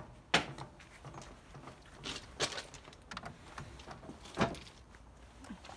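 Handling noise of the camera and hand tools being moved: a handful of irregular sharp knocks and clicks, the loudest about a third of a second in and about four and a half seconds in.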